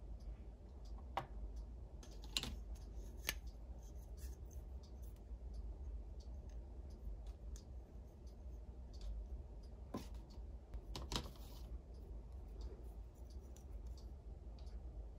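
Small hard plastic toy pieces being handled and set down, giving a handful of scattered light clicks and taps over a low steady hum.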